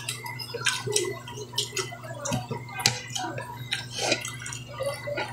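People eating a meal: scattered short clicks and clinks of utensils and dishes, with chewing sounds, over a steady low hum.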